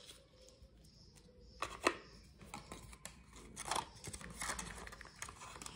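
Faint handling noises: a few light clicks and rustles, starting about a second and a half in, as a silicone-covered earbud case and a smartphone are picked up and handled.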